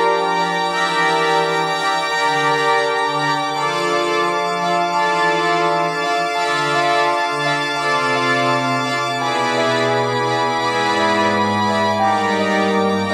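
Synthesized soundtrack music of a 64k demoscene intro, generated in real time by the intro's software synthesizer: slow, sustained chords over a bass line that steps down in the second half, with no percussion.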